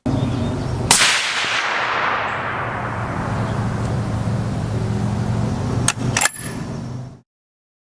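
A loud sharp blast about a second in that fades away slowly over several seconds above a low steady hum, then two more sharp cracks close together near the end, after which the sound cuts off.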